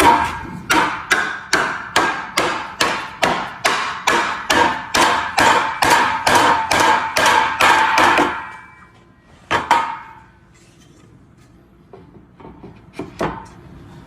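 Steady hammer blows in woodworking, about two a second with a ringing note, for about eight seconds, then one more blow and a few light taps near the end.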